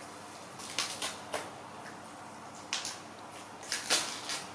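Young macaques biting and tearing green lotus seed pods: a scatter of short crisp crunches and rustles, in small clusters about a second in, near three seconds and near four seconds, over faint room hum.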